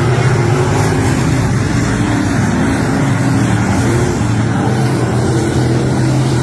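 Race car engine running steadily under power, its pitch holding nearly level.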